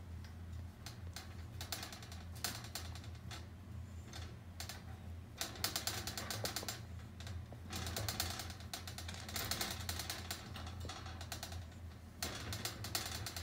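Wire pet playpen rattling and clicking in quick runs as kittens paw and climb at its bars and a cat-teaser wand knocks against them.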